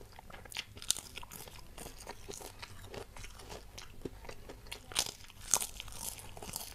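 A person chewing and crunching kerupuk crackers with food, close to a clip-on microphone: a run of small crisp crunches, with louder crunches about five seconds in.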